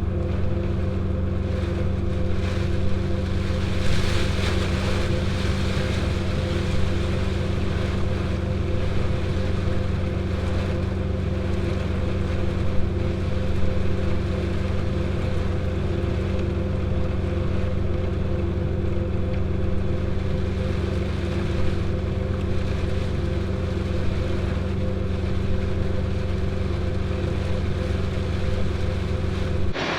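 A farm machine's engine running steadily at constant speed, a low even drone with a steady hum. It stops abruptly right at the end.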